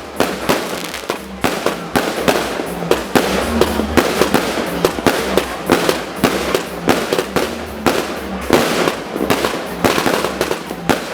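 Fireworks display going off: a dense, continuous barrage of bangs and crackles, many per second with no pause.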